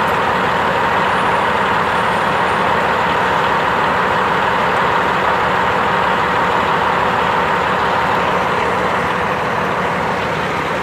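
Fire truck's diesel engine idling steadily close by: a constant loud engine noise with a steady, even hum.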